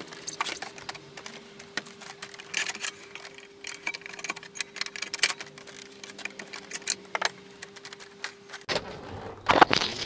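Irregular metallic clicks and clinks from a Max2H Evo2 manual tyre changer's bar and a steel tyre lever working against the wheel rim as the tyre bead is pulled round off a motorcycle wheel. A faint steady tone runs underneath until near the end.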